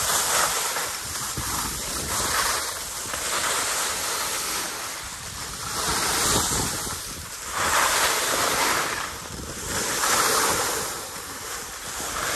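Edges scraping and hissing across the snow during a run down a groomed ski slope, swelling and fading every couple of seconds with each turn, with wind rushing over the microphone.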